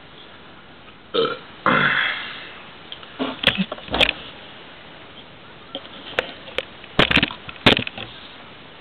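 A man belches after drinking carbonated malt liquor: a short burp about a second in, then a longer one that fades out. Later come scattered sharp clicks and knocks.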